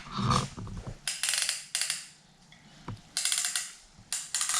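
Three short bursts of rapid metallic clicking and rattling from engine parts being handled, with a single sharp tick between them.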